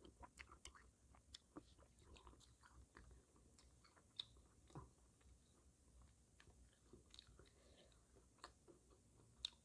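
Faint chewing with scattered small mouth clicks and smacks from someone eating, very close to the microphone; otherwise near silence.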